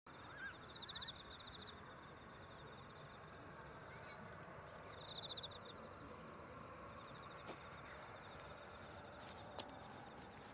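Insects trilling steadily, with two louder bursts of rapid pulsed trills about a second in and about five seconds in, over a faint low steady rumble; two sharp ticks near the end.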